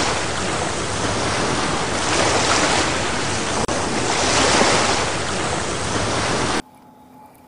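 Ocean surf sound effect: a steady rush of breaking waves that swells and eases a few times, with a brief dropout midway, then cuts off abruptly near the end.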